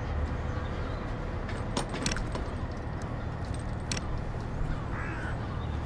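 Metal clinks and rattles of a boat davit's hooks and rigging being handled, a few sharp clinks about two seconds in and again near four seconds, over a steady low hum.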